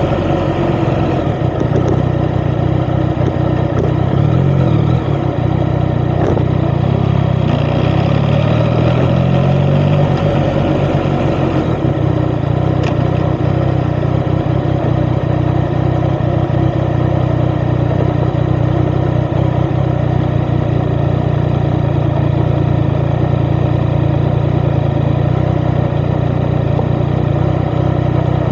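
Yamaha XSR900's three-cylinder CP3 engine through an Akrapovic titanium exhaust while riding: the engine note climbs twice in the first ten seconds as the bike accelerates, then settles into a steady cruising note.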